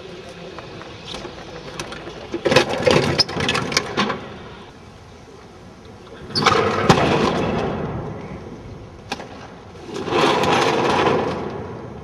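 A refrigerator dragged and scraped across stone paving in three rough bursts, with knocks and clatters as it moves.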